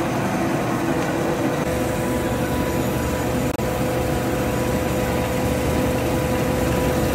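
Rice mill hulling machine running steadily, a constant hum with a steady whine on top, as bamboo rice paddy is husked.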